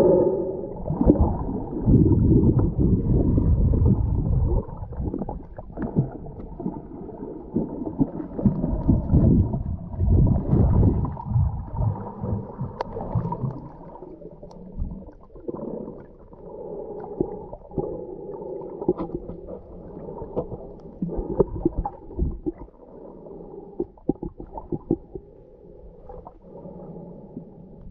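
Muffled underwater rumbling and gurgling of water moving around a submerged camera, with scattered small clicks. Louder surges come in the first few seconds and again around ten seconds in, then it settles to a quieter rumble.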